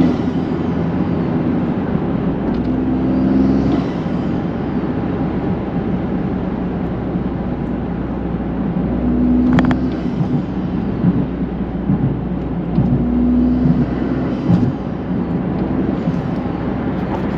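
GR Corolla's turbocharged three-cylinder engine, breathing through a K&N cold-air intake, heard from inside the cabin while driving: a steady rumble of engine and road noise, with the engine note coming up several times.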